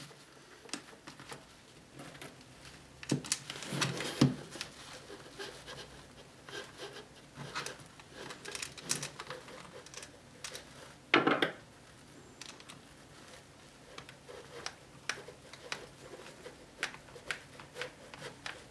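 Hands handling a Kydex holster and its straps against nylon MOLLE webbing: scattered small clicks, taps and rubbing of plastic on nylon, with two louder clatters about 4 and 11 seconds in.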